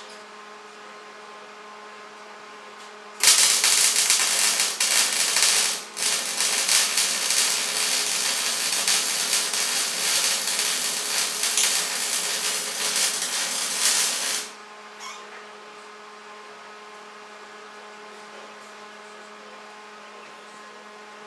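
Arc welding on 2x2 steel tubing: a loud, steady crackling sizzle starts about three seconds in, breaks off briefly near six seconds, and stops abruptly around fourteen seconds. The welder is at the limit of its duty cycle, and its over-temperature protection is dropping the power back, which made this last joint weld badly.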